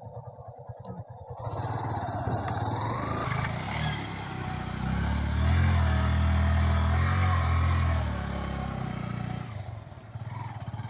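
Yamaha FZ V2 motorcycle's single-cylinder engine ticking over, then pulling away with rising revs. It runs loudest under load for a few seconds in the middle and eases off near the end.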